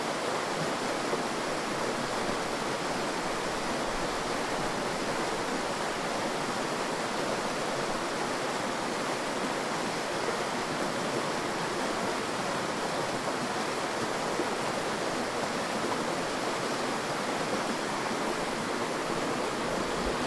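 Steady rain falling on forest leaves: an even, unbroken hiss.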